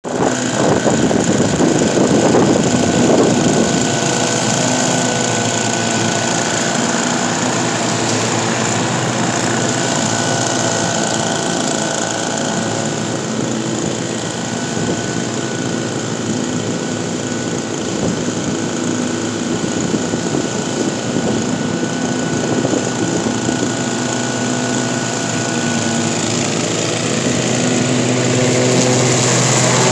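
Petrol engine of a commercial walk-behind lawn mower running steadily while its blades mulch fallen leaves. It is a little louder at the start and again near the end.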